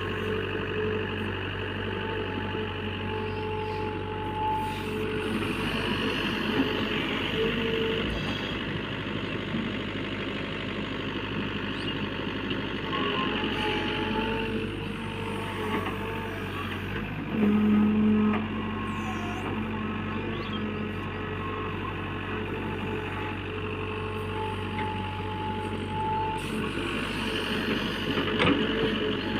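JCB backhoe loader's diesel engine running steadily as it works, with intermittent whining tones over it and a loud, short tone about seventeen seconds in.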